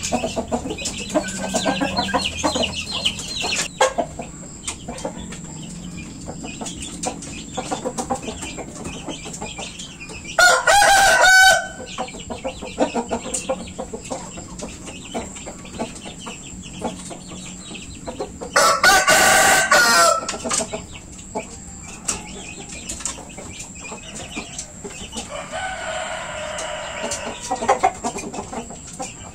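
Roosters crowing: two loud crows about ten and nineteen seconds in, and a fainter, longer crow near the end, with clucking and short clicks between.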